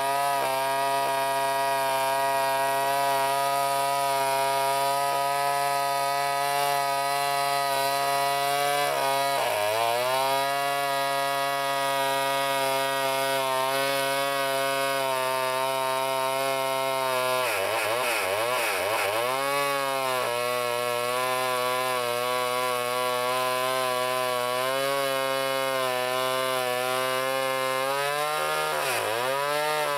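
Sears D-49 80cc two-stroke chainsaw running at high speed while ripping a log lengthwise on a chainsaw mill. The engine bogs down under the cutting load three times and picks back up each time: briefly about ten seconds in, with a wavering dip a little past halfway, and again near the end.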